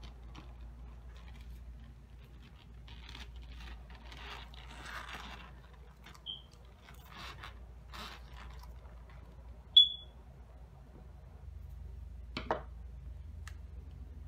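Hands tearing and pulling apart fibrous jackfruit flesh, with soft irregular tearing and scraping sounds. A short high chirp, the loudest sound, comes about ten seconds in, with a fainter one a few seconds before it, and a single sharp click comes near the end.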